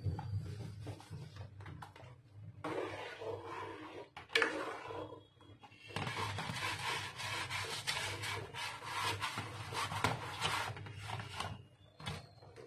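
Steel spoon stirring semolina into boiling water in a metal pot, scraping and rubbing against the pot in short strokes; the stirring comes in bursts, with the longest and loudest stretch in the second half.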